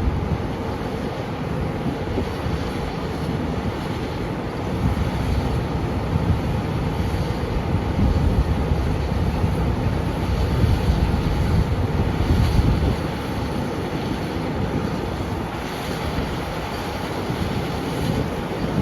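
Wind buffeting the microphone in gusty low rumbles over the steady running of a farm vehicle's engine.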